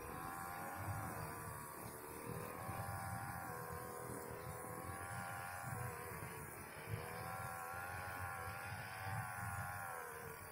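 Faint small engine of a motorised grass trimmer running steadily, its pitch wavering up and down.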